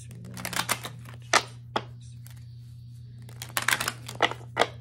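A deck of tarot cards being shuffled by hand: a quick run of card slaps and flicks soon after the start, another sharp one about a second in, and a longer, denser run near the end, over a steady low hum.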